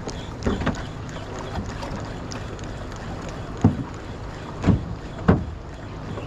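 Water slapping against the hull of a small open boat on choppy sea: several sharp slaps, the loudest three in the second half, over a steady wash of water and wind.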